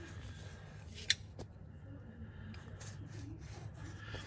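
Faint rubbing and shuffling as the camera is moved around under the car, with one sharp click about a second in over a steady low hum.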